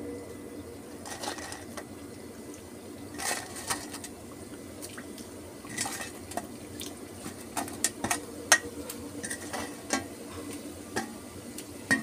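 Potato fries deep-frying in hot oil in an iron kadhai, sizzling steadily with sharp pops and crackles every second or so as more fries are dropped in. This is the second frying of cooled, half-fried fries on a high flame.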